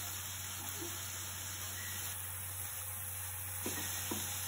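Crushed shallots and dried chilli flakes sizzling steadily in a little oil in a pan over a low flame, with a couple of faint clicks near the end.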